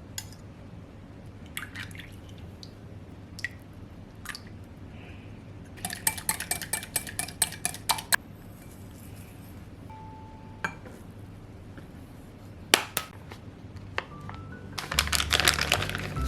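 Kitchen utensils clinking and knocking against a bowl, with a quick run of strokes like stirring or whisking a few seconds in and scattered single knocks. Soft music comes in near the end.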